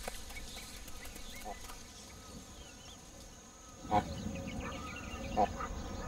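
Natural ambience: a steady high insect drone with scattered small bird chirps, and two short, loud animal calls, one about four seconds in and one about a second and a half later.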